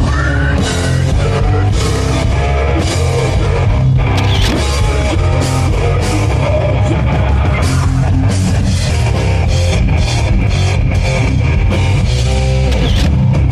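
Heavy metal music with electric guitars and a drum kit.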